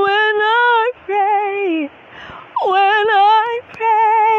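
A woman singing solo in long held notes with a wavering vibrato, pausing briefly about two seconds in before the next phrase.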